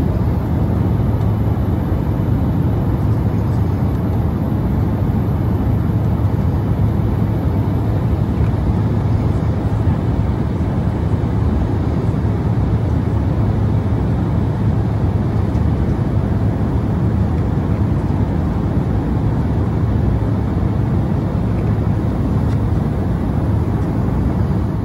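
Steady cabin noise of an Embraer 175 jet airliner in flight: a constant low drone of engines and rushing air with a deep, even hum, unchanging throughout.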